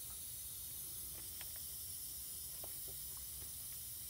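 A faint steady hiss with a few light clicks and soft rustles from hands and a rag working at a car's door sill.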